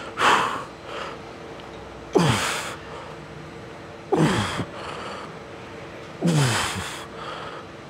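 A man's forceful grunting exhales, four of them about two seconds apart, each dropping in pitch: the strained breathing of a lifter pushing out reps in a set. A faint steady hum sits underneath.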